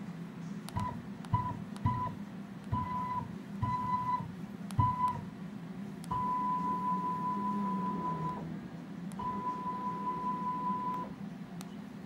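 An electronic beeper sounds a single tone at key presses on a homemade wireless remote for a CNC controller. There are six short beeps, each with a button click, in the first five seconds, then two long beeps of about two seconds each while a button is held. A low steady hum runs under it all.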